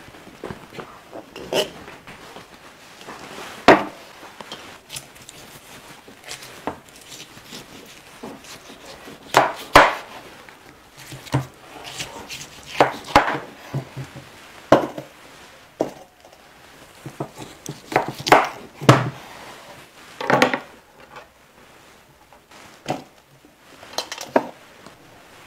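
Knife cutting beef hooves on a wooden cutting board: irregular sharp knocks of the blade against the board, a dozen or more, some much louder than others, with clinks of metal dishes among them.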